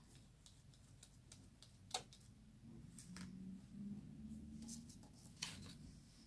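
Faint handling sounds: a plastic glue paddle spreading wet glue on card, with a light click about two seconds in and a few more clicks near the end.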